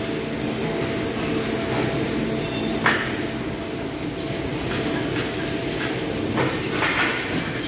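Factory machinery running steadily in a hall, a constant drone with a few steady tones. A short hiss comes about three seconds in, and a few more come near the end.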